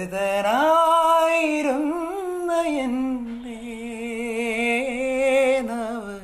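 A young man singing solo with no accompaniment. The phrase climbs in pitch at the start, then settles into a long held note with vibrato, which drops away just at the end.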